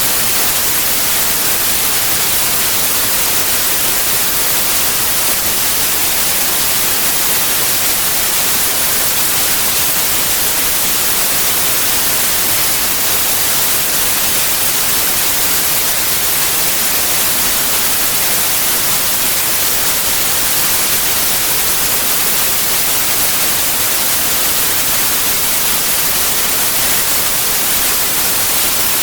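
White noise: an even, steady hiss with the most energy in the treble, unchanging throughout.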